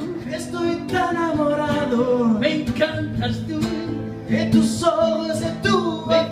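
Nylon-string classical guitar strummed live while a man sings into a microphone.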